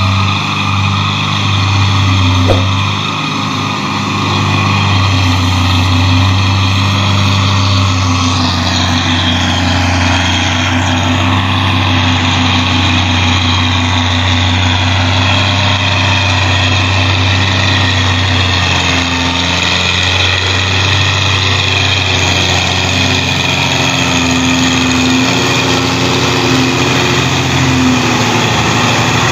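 Belarus 510 tractor's four-cylinder diesel engine running steadily and hard under heavy load, hauling a heavily loaded sugarcane trolley.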